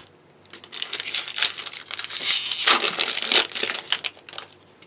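Foil booster-pack wrapper crinkling as it is handled and torn open, loudest about halfway through.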